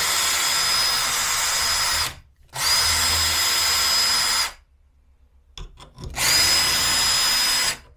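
Makita cordless drill spinning a 5.2 mm round chainsaw file against a saw-chain tooth, grinding the cutter. It runs in three spurts of about two seconds each, with short pauses between them and a steady high whine from the motor.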